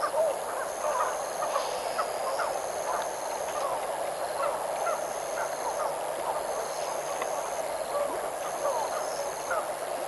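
A dense outdoor chorus of many short bird calls overlapping, with a high, thin trill that repeats about every one and a half to two seconds above it.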